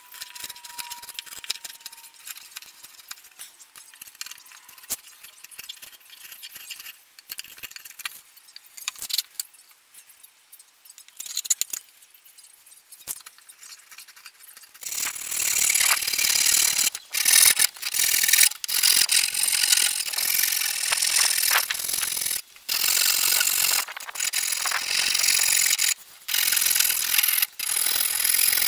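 Knife shaving the edges of a wooden paddle blade: faint, scattered scrapes and clicks. About halfway through, a loud, hissy power tool starts working the wood, cutting off and restarting several times.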